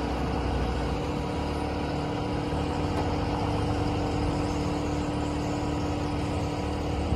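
Rollback tow truck's hydraulics working as the tilted bed is lowered the rest of the way to the ground: a steady hum from the PTO-driven pump over the truck's running engine, the hum stopping near the end as the lever is released.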